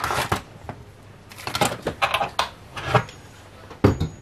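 Light, irregular clicks and knocks of hands handling a small metal-cased preamp, with the sharpest knock near the end.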